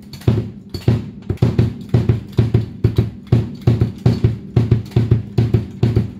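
Bass drum kicked repeatedly with a foot pedal fitted with a new stainless steel beater stick, testing the beater. The strikes come about three to four a second, some in quick pairs, each a deep thud on a head damped with a noise-reducer pad.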